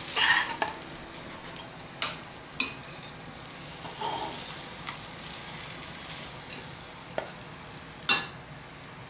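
Hot fried rice sizzling in a non-stick pan as a metal spatula scrapes it out onto a plate, with a few sharp clinks of the spatula about two seconds in and again near the end.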